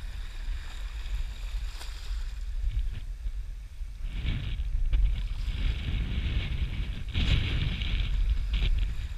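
Wind buffeting the microphone over waves washing at the shoreline, with louder stretches of water hiss about halfway through and again near the end.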